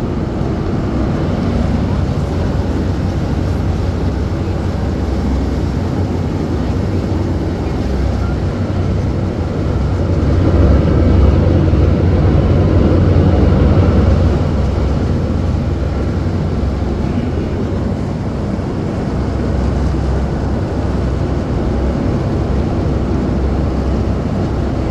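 Engine of an amphibious WWII DUKW "Duck" running steadily as it cruises on the river, a low drone with a rushing noise over it. It grows somewhat louder about ten seconds in and eases back a few seconds later.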